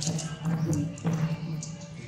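Background music with a steady pulsing low note and scattered short clicks.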